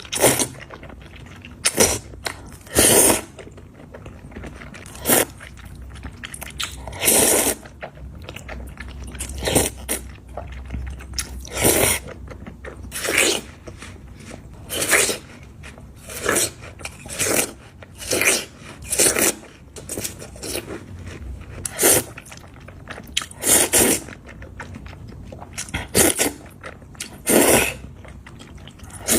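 Close-miked eating of sticky noodles in soybean paste: chewing and mouth sounds in short, loud bursts every second or two.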